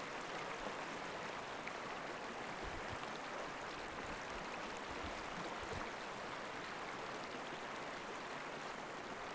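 Recorded river rapids as a quiet backing track: water rushing steadily over rocks, an even wash of noise that does not change.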